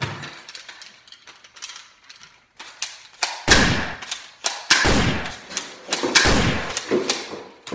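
Three loud gunshots about a second and a half apart, each followed by a long echoing tail, after a few seconds of clicks and knocks as a gun is handled on a workbench.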